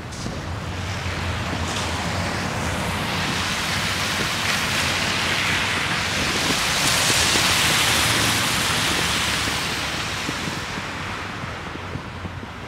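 Wind buffeting the microphone with a low rumble, and a rushing hiss that swells to its loudest about seven seconds in and then dies back down.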